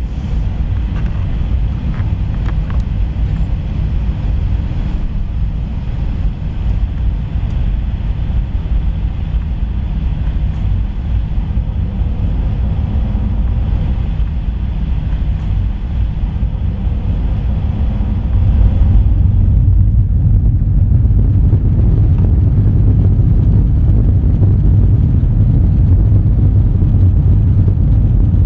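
Steady low rumble of an Airbus A321 heard from inside the cabin. About two-thirds of the way through it abruptly becomes louder and deeper.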